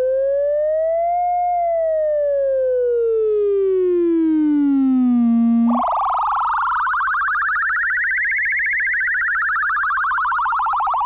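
Brüel & Kjær Type 1022 beat frequency oscillator's tone sweeping in pitch as a stepper motor turns its coarse-tune knob. It glides up, then slowly down. Midway it jumps to a higher, rougher, wavering tone that rises and falls again like a siren, over a faint low hum.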